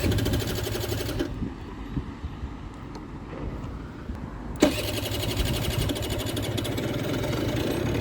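50cc two-stroke scooter engine being restarted after stalling. A brief burst of cranking and sputtering comes first, then about four and a half seconds in it catches and runs steadily. The owner believes it is running out of fuel.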